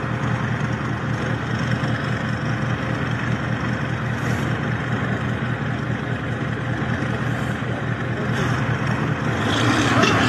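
Large wheeled farm tractor's diesel engine running steadily, hitched to a truck it is towing through mud.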